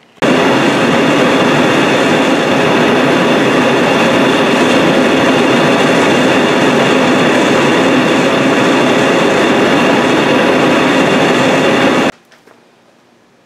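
Two homemade propane forge burners with MIG-tip orifices running together at 10 PSI: a loud, steady rush of gas and flame. It starts sharply at the beginning and cuts off abruptly near the end.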